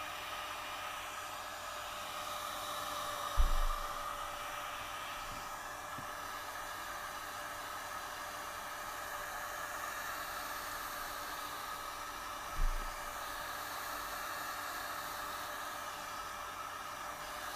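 Heat gun running steadily, a rushing blow of hot air with a faint steady tone, played over a phone's glass back to soften the adhesive under it. Two short low thumps, about three seconds in and again near twelve seconds.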